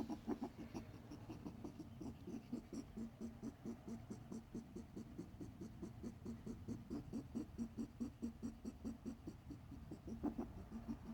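Pet rabbit making a rapid, rhythmic sound, about five soft pulses a second, kept up without a break. The owner fears it is a sign of illness; a vet was unsure of the cause.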